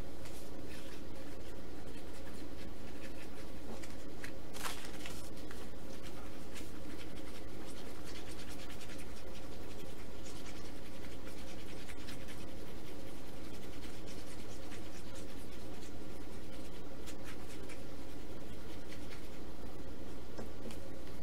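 Light scratching of a wooden stick stirring two-part 30-minute epoxy on a mixing surface, with a few small clicks, over a steady electrical hum.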